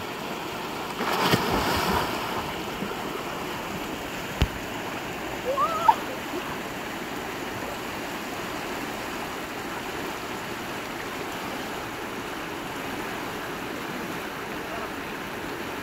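River water rushing steadily over shallow rapids, with a splash about a second in as swimmers dive in. A short shout comes around six seconds in.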